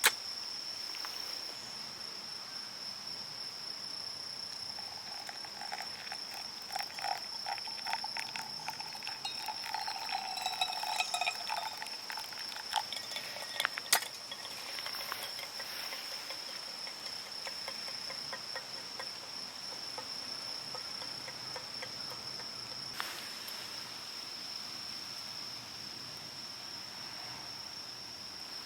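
Insects trilling in one steady, high-pitched drone. Scattered clicks and knocks and a brief lower warbling sound come through about a third of the way in, and there is one sharp click near the middle.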